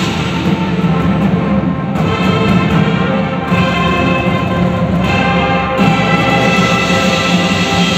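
Marching band playing: brass holding sustained chords over percussion, the chord changing several times.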